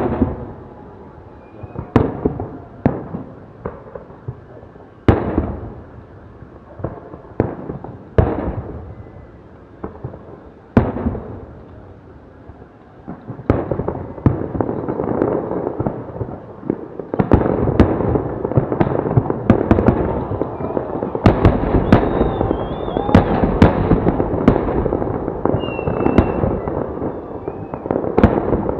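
Aerial fireworks salute: single loud bangs of bursting shells every second or two, then from about halfway a dense, continuous barrage of bangs and crackling that keeps building.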